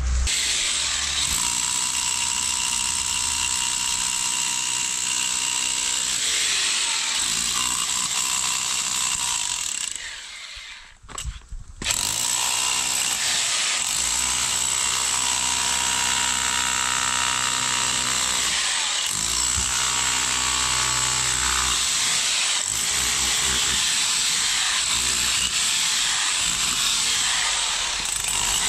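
Electric rotary hammer chiselling into an old, cracked concrete house foundation, running steadily; it stops for a couple of seconds about ten seconds in, then starts again.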